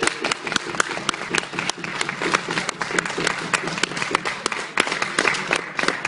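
Audience applauding, a dense, uneven clatter of hand claps with some single claps standing out close by.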